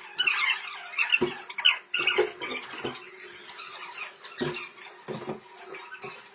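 Indistinct voices down a corridor, too faint to make out, over a steady hum. Now and then there are soft knocks and rustles from the phone rubbing against clothing.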